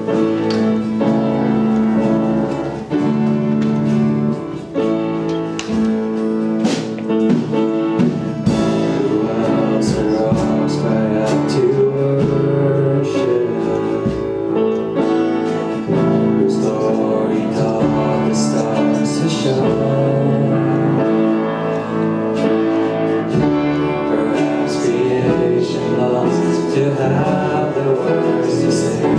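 Church worship band music: sustained keyboard chords with guitar, played steadily.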